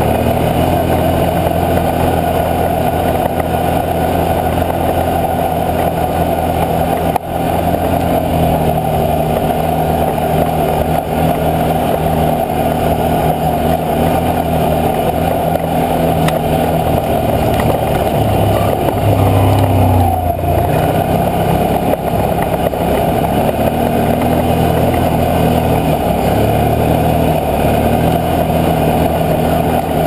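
Can-Am Outlander 650 X mr ATV's V-twin engine running while riding on a trail. Its note shifts down and back up a couple of times past the middle as the throttle changes, over steady riding noise.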